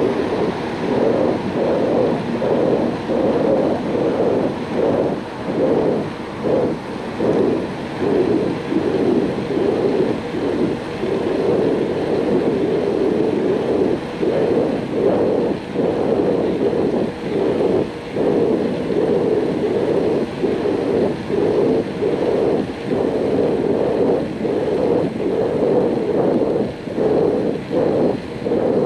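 Wind buffeting the microphone of a camera on a moving bicycle: a loud, steady rushing noise that swells and dips irregularly.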